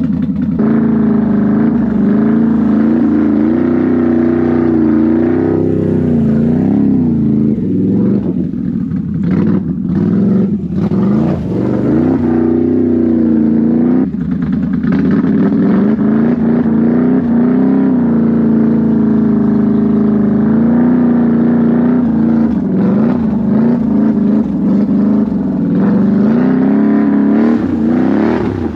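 Can-Am Renegade 1000 XMR ATV's V-twin engine, through an aftermarket SLG exhaust, running under the rider's throttle on a mud trail. The engine note rises and falls as the throttle is worked, with a few brief drops about ten seconds in.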